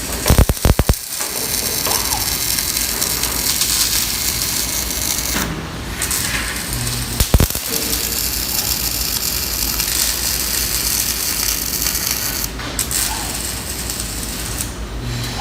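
Robotic arc welding: a steady crackling hiss of the welding arc that breaks off briefly about five and a half seconds in and stops about twelve and a half seconds in. Sharp mechanical clicks come in the first second and once about seven seconds in, over a constant low machine hum.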